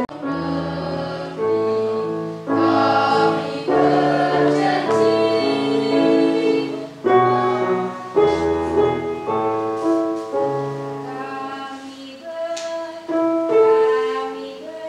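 Mixed school choir of boys and girls singing a song in parts, with long held notes that change pitch every second or so.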